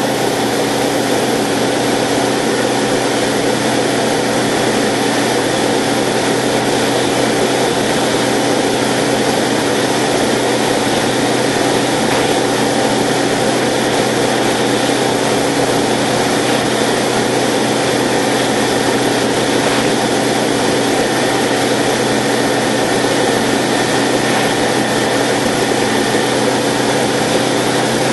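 Subaru-engined Zenith CH 701 light aircraft heard from inside the cockpit in flight: the engine and propeller run at a steady, unchanging drone.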